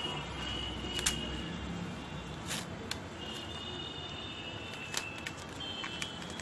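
Packaging being handled as a potted adenium plant is pulled out of its wrapping: scattered crackles and a handful of sharp clicks and taps. A faint steady high tone carries on underneath.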